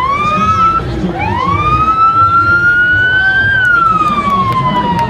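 Emergency vehicle siren: a short rising whoop, then one long wail that climbs for about two seconds and slowly falls away, over a low murmur of crowd voices.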